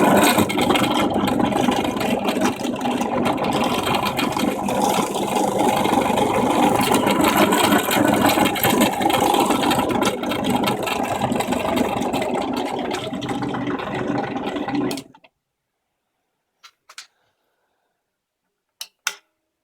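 Parkside PTBM 500 A1 bench drill press running and drilling into a pine batten, a loud steady motor-and-cutting noise. It cuts off suddenly about three-quarters of the way through, followed by a few short clicks.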